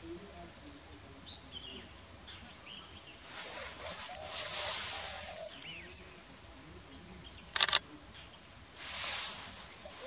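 Outdoor ambience with a steady high insect-like buzz, faint scattered bird calls and two swells of noise. About three-quarters of the way through comes a sharp, loud double click.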